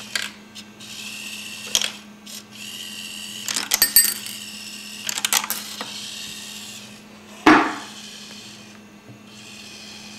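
Skittles sorting machine running: its hobby servos whir in short bursts every second or two over a steady low hum, with small clicks of candies dropping. A single loud thump comes about seven and a half seconds in.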